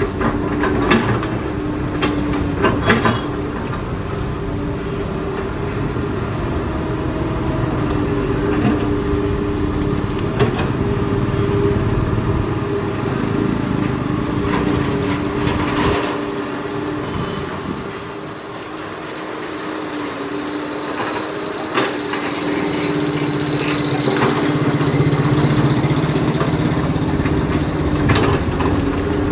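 Komatsu PC200 hydraulic excavator working: its diesel engine runs under a steady hum, with occasional knocks from the bucket and debris. The engine grows louder for a few seconds near the end.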